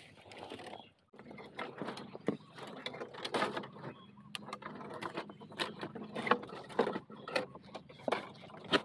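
Irregular crackling and snapping of dry leaves, twigs and bamboo as someone pushes and works through a bamboo thicket, with a brief pause about a second in.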